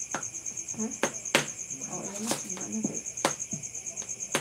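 Crickets chirping in a steady, fast-pulsing trill, with several sharp clicks about a second apart over it.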